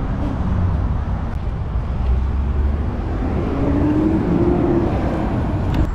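Road traffic: a steady low rumble of cars running along the street, with one vehicle's engine note rising and falling about four seconds in.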